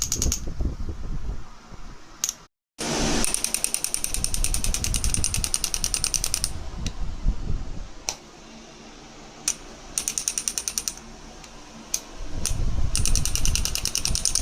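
A device clicking rapidly and evenly, about nine clicks a second, in several runs separated by pauses, with a brief cut to silence about two and a half seconds in.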